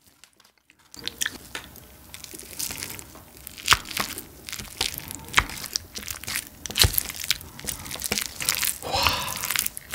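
Wooden spoon mixing sticky rice with a fried egg and sesame oil in a ceramic bowl, close-miked: a steady run of wet clicks and crackles, with a few sharper clacks. It starts about a second in.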